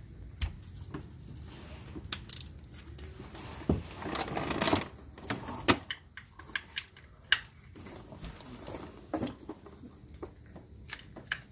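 Scattered clicks and knocks of hand tools being worked and handled, with a short rush of scraping or rustling about four seconds in.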